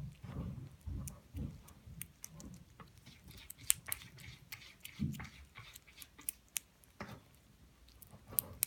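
Cats eating: soft chewing sounds, then many quick, irregular crisp clicks of food being crunched.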